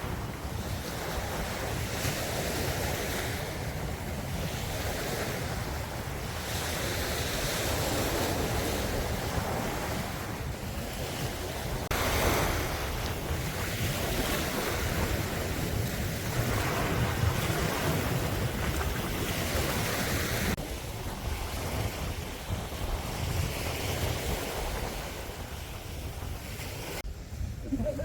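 Loud surf breaking and washing on the beach, surging and easing with each wave, with wind buffeting the microphone.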